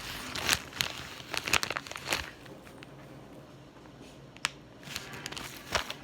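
Crinkling of packaging: a quick run of crackles for about two seconds, then a few separate clicks.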